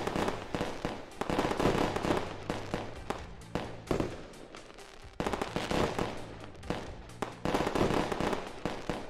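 Fireworks going off: a run of sudden bangs at an irregular pace, each followed by crackling as it fades.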